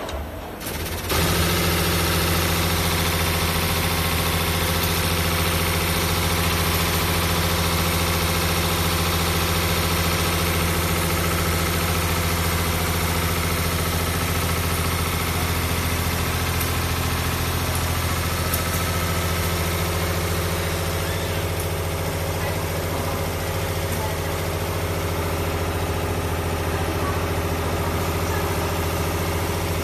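Six-spindle CNC needle winding machine running: a steady mechanical drone with a strong low hum that comes in suddenly about a second in and then holds unchanged.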